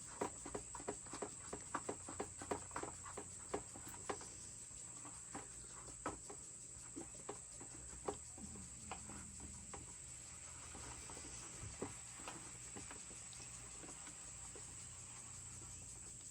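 Quick small clicks and taps of plastic parts being handled and screwed together, a plastic chicken-feeder port threaded into a bucket wall; the clicks come fast for the first few seconds, then thin out and mostly stop about ten seconds in.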